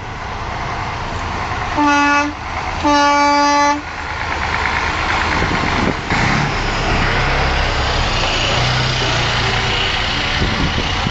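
Semi-truck horn blown twice, a short blast and then a longer one, each one steady pitch. Then the diesel engine and tyres of a tractor-trailer rumble louder as the rig passes close by.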